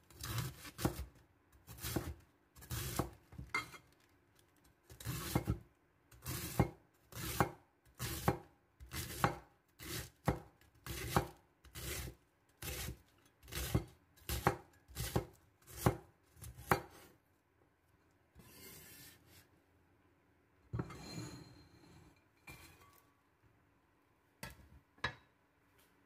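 Wide-bladed kitchen knife slicing cabbage thinly on a wooden cutting board: steady cuts, each ending on the board, about one or two a second. The cutting stops after about seventeen seconds, followed by a few softer scraping sounds and a couple of last cuts near the end.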